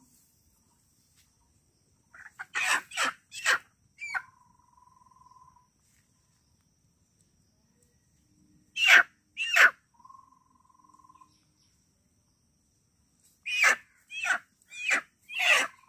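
Domestic hen squawking in distress while held by its legs, in three bouts of short, harsh, loud calls: about four around two to four seconds in, two around nine seconds, and four more near the end.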